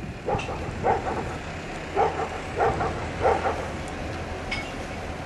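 A dog barking, about five short barks spaced unevenly, over a steady low hum.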